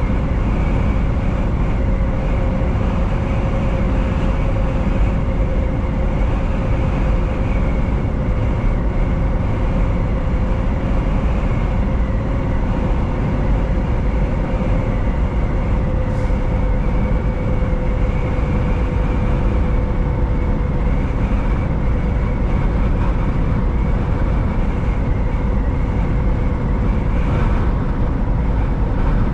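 Semi truck driving at steady speed on the highway: a constant engine drone with road and tyre noise and a steady hum.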